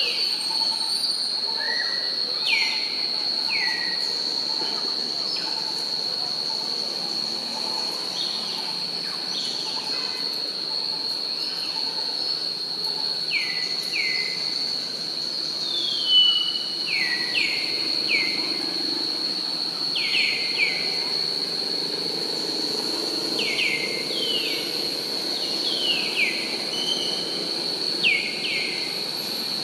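A steady high-pitched insect drone, with short falling chirps repeated every second or so, often in pairs.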